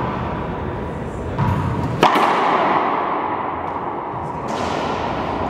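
One sharp crack of a racquetball strike about two seconds in, ringing through the enclosed court, with a smaller knock just before it, over steady background noise.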